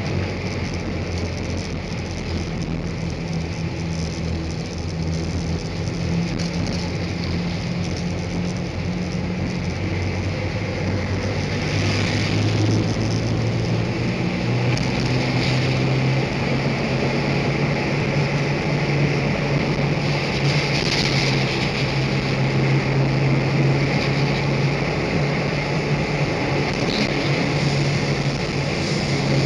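Car tyres humming on an open steel grid bridge deck, heard from inside the car: a steady hypnotic drone over road noise, its pitch shifting a little partway through.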